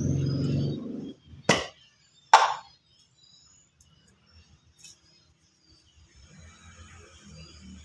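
Handling of an aerosol spray can: a low rumble as it is brought up, then a sharp click as its plastic cap is pulled off and a louder clack as the cap lands on a tile floor, followed by a few faint ticks.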